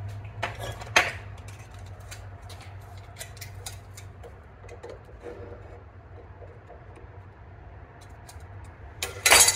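Small metal clicks and taps as slip-joint pliers work a shaft key out of a Simplicity bevel gearbox, with one sharper click about a second in and a louder clatter near the end.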